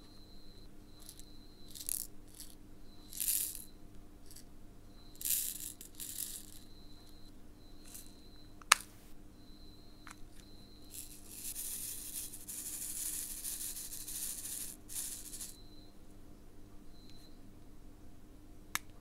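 Round resin diamond painting drills rattling in a small plastic storage pot and pouring out into a plastic sorting tray: a few short shakes, then a longer pour of about four seconds. One sharp plastic click near the middle and a few softer clicks.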